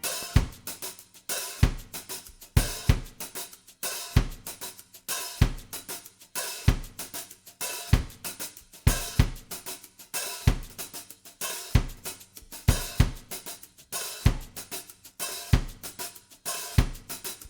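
Background music in a drums-only break: kick and snare hits under busy hi-hat and cymbal.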